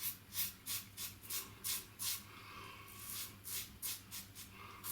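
Safety razor (Merkur 34C with a Wilkinson Sword blade) scraping through stubble in short, quick strokes, about two to three a second, with a brief pause in the middle.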